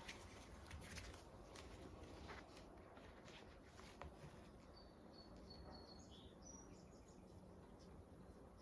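Faint light clicks and taps from the cap strip of a new sealed motorcycle battery being pressed down into its cells, over a low steady hum. A few faint high chirps come between about five and six and a half seconds in.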